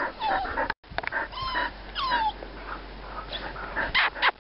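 Dogs whining, several short falling whines, with a few short sharp sounds near the end.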